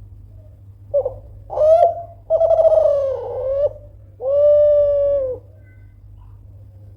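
A Derkuku Kelantan spotted dove cooing its song: a short note, then a longer rising coo, a long wavering coo, and a final long steady note.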